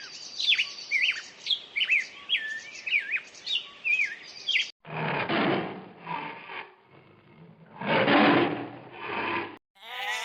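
Birds chirping rapidly, with quick high up-and-down peeps. After about five seconds this cuts to two rough, breathy animal sounds, each a second or two long.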